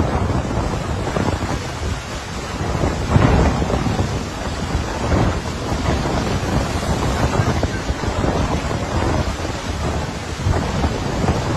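Wind buffeting the microphone at the open window of a moving car: a loud, gusty rumbling rush that swells and dips.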